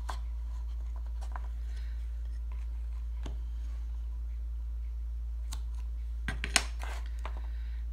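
Hands working narrow double-sided tape onto a small paper box on a cutting mat: faint rustles and light taps, with a short cluster of sharp clicks about six and a half seconds in, over a steady low hum.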